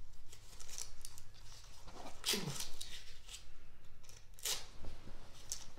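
A suppository inserter's strap being fastened around a hand: a series of short scratchy rips and rustles, the loudest about two seconds in and again past four seconds.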